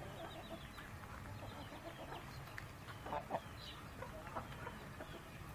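Faint, scattered clucks and short chirps from poultry feeding on the ground, with a couple of clearer calls about three seconds in.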